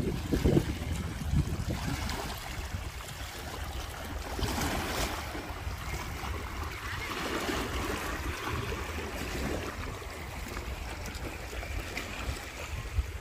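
Small waves washing and lapping over a rocky shoreline, with swells of wash about a third of the way in and again past the middle, over a steady low wind rumble on the microphone.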